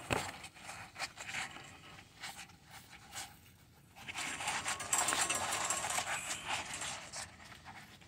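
A soapy sponge rubbed and squeezed over a refrigerator's leaking low-pressure line, a soft wet rustling scrub that starts about halfway through and fades near the end: a soap-bubble leak test on the line pressurized with nitrogen.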